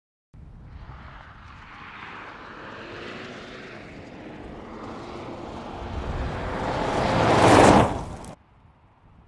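Mercedes-Benz GLB 200 d's four-cylinder diesel engine and its tyres on a dirt track as the SUV approaches at speed and passes close by. The sound grows steadily louder and is loudest as it passes near the end, then cuts off suddenly.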